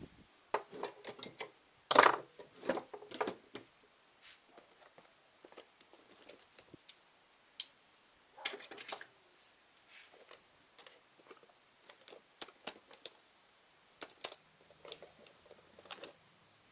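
Metal hand tools being handled, irregular clinks, clicks and knocks as they are picked up and set down, loudest about two seconds in.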